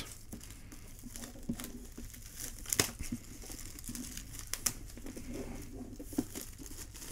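Plastic shrink wrap crinkling and crackling as it is torn and peeled off a cardboard box, with scattered sharp crackles, the loudest about three seconds in.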